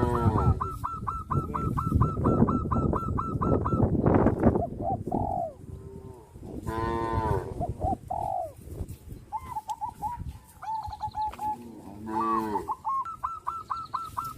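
Cattle mooing, several drawn-out calls one after another. A rapid run of evenly repeated high calls is heard at the start and again near the end.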